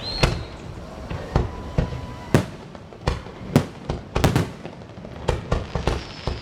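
Fireworks going off: a rapid, irregular string of sharp bangs, about a dozen, with a few thin whistling tones among them.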